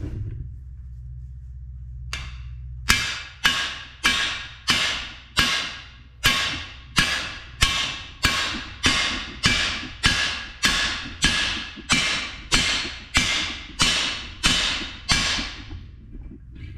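Hammer blows driving a cam bearing into an aluminum LS engine block with a cam bearing installer bar: about two dozen even strikes, about two a second, each with a short metallic ring. One lighter tap comes first, and the strikes stop shortly before the end.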